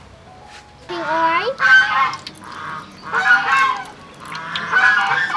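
Loud animal calls repeated in short bursts of about half a second, with a bending pitch, starting about a second in and coming roughly every second.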